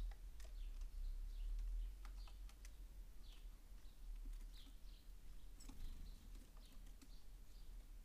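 Small songbirds, such as tits and sparrows, giving many short high chirps, mixed with scattered light clicks and taps. A low rumble runs underneath.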